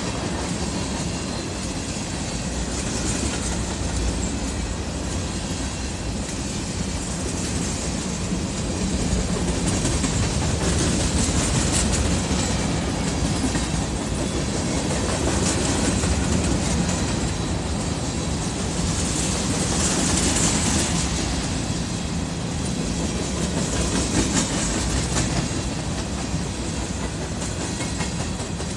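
Empty covered hopper cars of a freight train rolling past: steel wheels clickety-clacking on the rails over a steady rumble, swelling and easing in waves as the cars go by.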